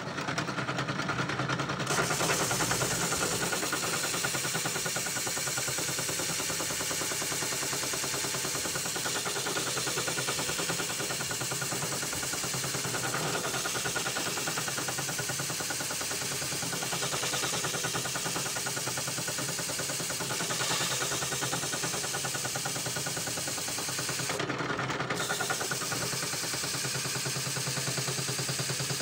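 Bench drill with a drum sander attachment running, its abrasive sleeve grinding against the curved inside edge of a wooden lyre frame. A steady, dense rasp that cuts in suddenly at the start.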